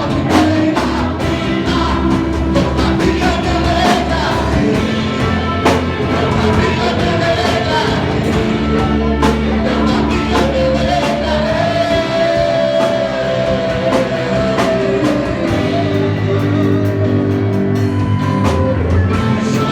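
A live worship band playing a praise song: singing over a drum kit and bass, with a long held vocal note around the middle.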